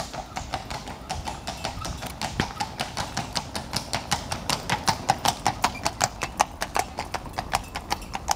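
Horses' shod hooves clip-clopping on a paved road as a horse-drawn carriage team passes, a quick, even run of hoofbeats several a second that grows louder through the middle and second half.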